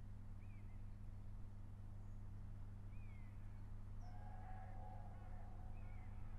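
Faint chirps from small birds over a steady low hum. About four seconds in, a faint, drawn-out call with several tones sounds for a second or so.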